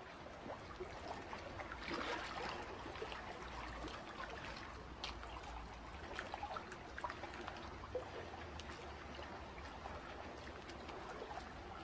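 Faint trickling water, like a small stream, with many small drips and splashes scattered through it.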